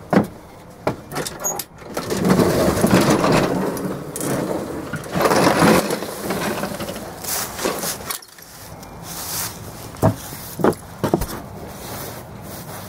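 Walk-behind lawn mower being rolled out of a shed: its wheels and deck rattle and rumble over the floor and ground for a few seconds, followed by a few sharp knocks about ten seconds in.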